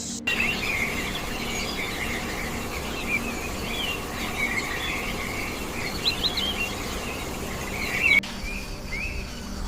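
Many birds chirping and twittering together in a dense, busy chorus over a steady background hiss. The chorus starts abruptly just after the beginning, and about 8 seconds in it cuts to a thinner patch with only a few chirps.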